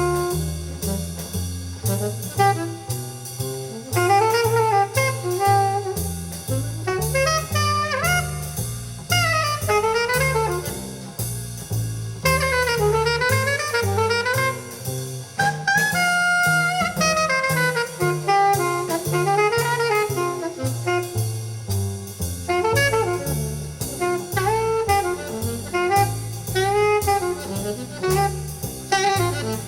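Jazz played through a Fisher CA-800 integrated amplifier as a listening test: a saxophone melody over a steady stepping bass line and drum kit.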